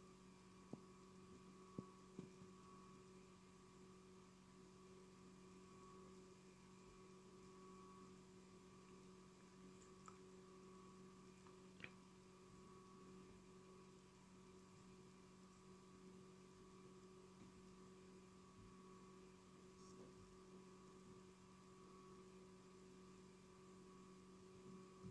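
Near silence: a faint, steady electrical hum with a few faint ticks.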